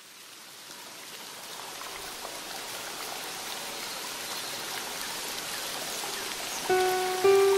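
Steady rainfall fading in from quiet and growing louder, a hiss with scattered drop ticks. Near the end, the first held notes of instrumental gending music come in over the rain.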